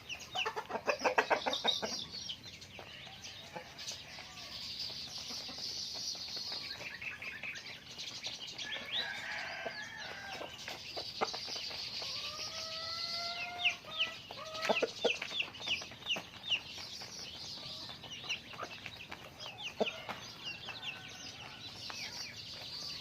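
Chickens clucking and calling, with a fast, loud run of clucks in the first couple of seconds and scattered shorter calls after.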